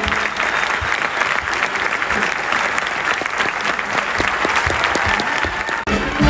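Crowd applauding with steady, dense clapping. Music cuts in just before the end.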